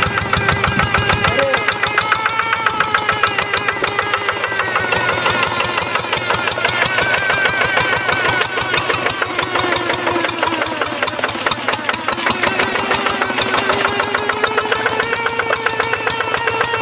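Single-cylinder diesel engine of a Quick G1000 Boxer hand tractor running under load as the cage-wheeled tractor ploughs through paddy mud, a rapid, even chugging whose pitch wavers up and down.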